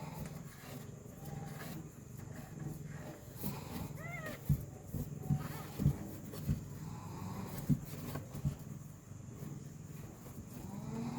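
A mother cat with her newborn kittens: a short high mew about four seconds in over a low steady hum, with a few soft knocks.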